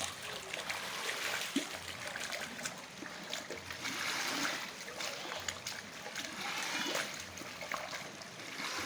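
Water trickling and splashing without a break, with many small splashes throughout: rainwater being drained away.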